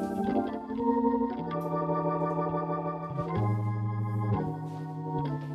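Hammond-style organ music: sustained full chords over a bass line that moves to a new note every second or so.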